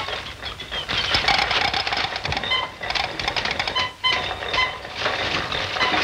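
Rapid mechanical clattering sound effect mixed with short, repeated high beeping tones on an old, hissy film soundtrack.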